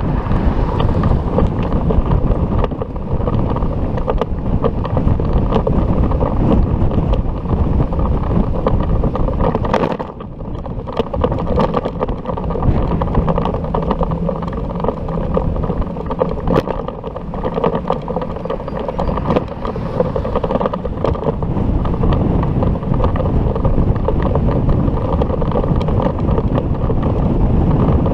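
Wind buffeting an action camera's microphone during a ride, with vehicle and road noise underneath. It is loud, steady and muffled, and drops off briefly about ten seconds in.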